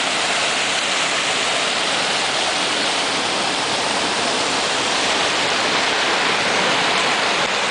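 River water rushing down a small rocky cascade into a pool, a steady, unbroken hiss.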